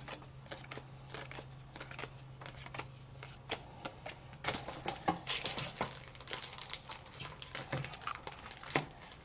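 Pokémon trading cards being handled and slid over one another, giving soft light clicks and rustles. From about halfway through, a foil booster-pack wrapper crinkles as it is picked up and handled.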